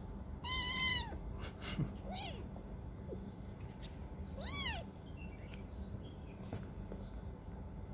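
Kittens meowing during a play-fight: two high, arching cries, about half a second in and about four and a half seconds in, with a shorter, fainter cry between them.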